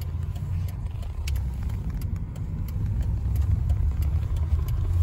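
Road and engine rumble heard from inside a moving Mercedes-Benz car: a steady low drone.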